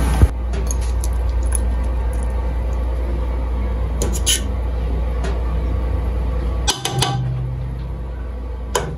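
A metal fork stirring food in an aluminium pot, with a few sharp clinks and scrapes against the pot's side, the loudest cluster about two-thirds of the way in. A steady low hum runs underneath.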